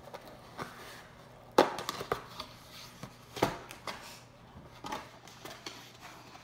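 Small cardboard mug box being opened and handled by hand: a few sharp taps and knocks, the loudest about one and a half seconds in, with soft rustling of the packaging between them.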